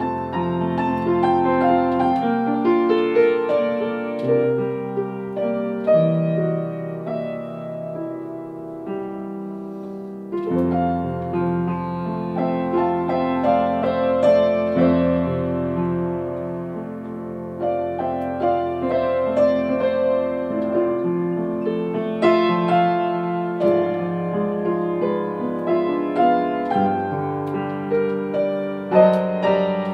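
Upright piano played solo: continuous chords and melody over a moving bass line, easing to a softer passage around ten seconds in before the playing grows fuller again.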